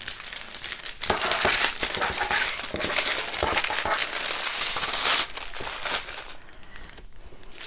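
Clear plastic packets of diamond painting drills crinkling and rustling as a strip of them is gathered up and lifted, with many small clicks. The sound is heaviest for the first few seconds, then softer.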